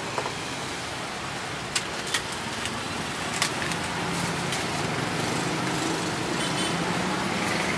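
Street traffic noise with a motor vehicle engine running, its low hum growing slightly louder about four seconds in. A few sharp clicks or taps sound in the first half.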